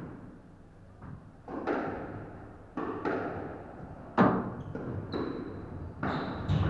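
A squash rally: the ball cracks off rackets and the court walls about eight times at an irregular pace, each knock echoing in the court, the loudest a little over four seconds in. Short high squeaks of shoes on the wooden floor come about five seconds in and near the end.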